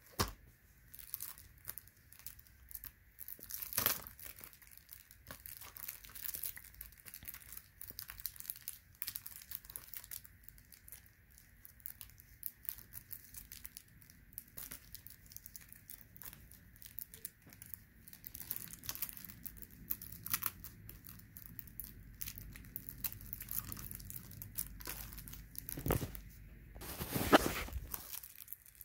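Plastic wrapping on a Blu-ray case crinkling and tearing as it is handled and pulled at, a steady string of sharp crackles with louder bursts about four seconds in and near the end.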